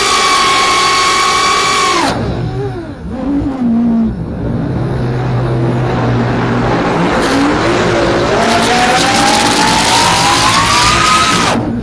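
FPV racing quadcopter's motors and propellers whining at high throttle. The pitch falls away sharply about two seconds in as the throttle is cut. After a few seconds of lower, unsteady whirring, the whine climbs steadily in pitch as the throttle is pushed up, then drops off suddenly near the end.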